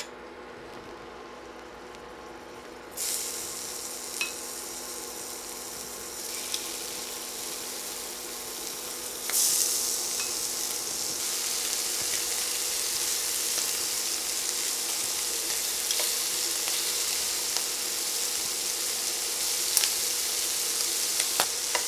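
Shrimp sizzling in hot coconut oil in a cast-iron skillet as they are laid in with metal tongs. The sizzle starts about three seconds in and gets louder in steps as more shrimp go in, with a few light clicks of the tongs.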